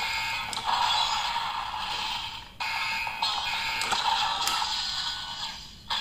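DX Desire Driver toy belt with the Gigant Buckle playing its electronic sound effects and music through its small, tinny speaker. The sound comes in two long phrases, broken by a brief drop about two and a half seconds in.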